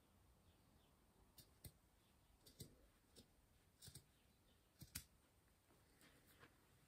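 Scissors snipping through thick cotton mop-head yarn: about ten faint, sharp cuts, several in quick pairs, starting a little over a second in.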